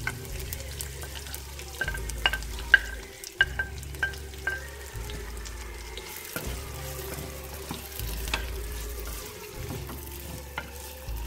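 Chopped onion sizzling in hot oil in a clay pot while a wooden spoon stirs it, with a run of sharp spoon taps about two seconds in.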